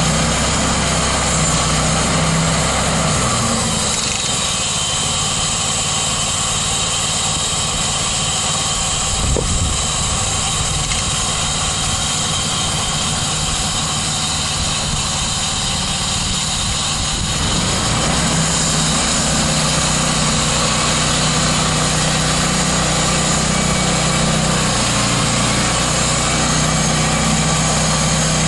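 13 HP Honda single-cylinder engine of a band sawmill running continuously. About four seconds in, its steady note changes, and it settles back to the steady note about seventeen seconds in.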